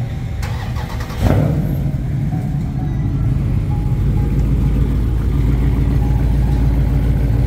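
Dodge Challenger's engine running through a loud aftermarket exhaust, with a sharp burst of throttle about a second in, then a steady low rumble as the car is driven slowly.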